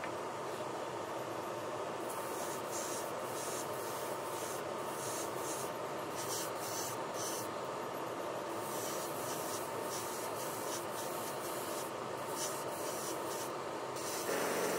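Airbrush spraying paint, its hiss swelling in repeated short bursts over a steady background hiss with a faint steady tone.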